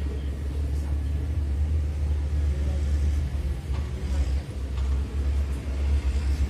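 Steady low rumble of heavy vehicle engines: dump trucks and excavators working.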